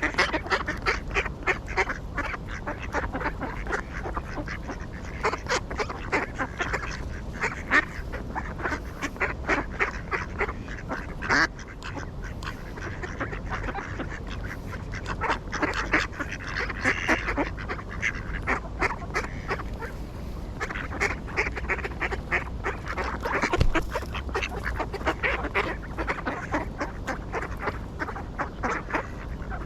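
A flock of ducks quacking, many short calls overlapping in a continuous stream, with a few louder ones standing out.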